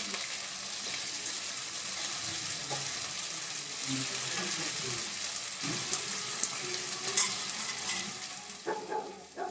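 Cauliflower florets sizzling as they fry in hot oil in a kadai, the oil spitting from the water on the florets, with a steel spatula scraping and clicking against the pan as they are stirred.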